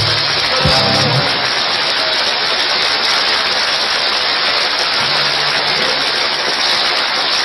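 Audience applauding and cheering at the end of a song, a loud, steady clatter of clapping. The band's last low notes die away about a second in.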